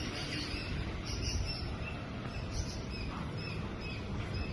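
Outdoor ambience: short, high chirps repeating a couple of times a second over a steady low rumble.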